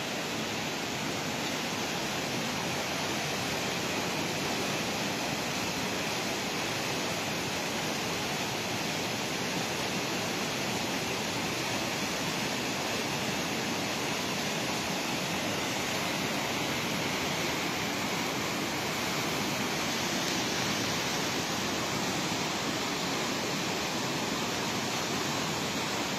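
The swollen Bregalnica river rushing in flood, a steady, even roar of fast turbulent water running high after heavy rains.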